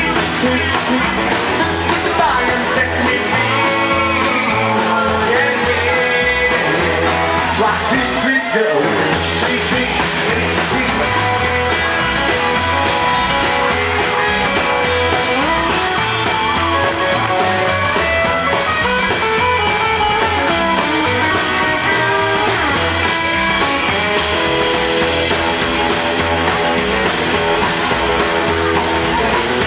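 Live band playing rock and roll on electric guitar, acoustic guitar and upright double bass.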